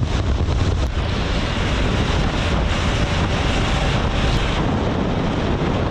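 Wind rushing steadily over the microphone while riding a Harley-Davidson Pan America, with the motorcycle's engine and road noise running under it.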